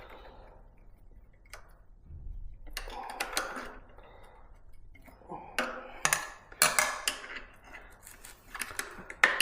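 Scattered sharp metal clicks and scraping as long-nose pliers grip and work the tight pad-retaining pin of an e-bike's rear disc brake caliper.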